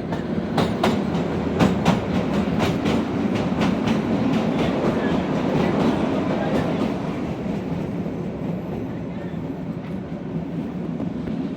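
Kalka–Shimla narrow-gauge toy train running on the track: a steady rumble with the clickety-clack of wheels over rail joints. The clicks come thick for the first several seconds, then ease into a smoother, quieter run.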